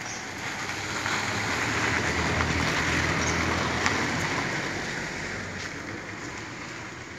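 A vehicle passing by: a steady rushing noise with a low rumble that swells over a couple of seconds, peaks midway, then fades away.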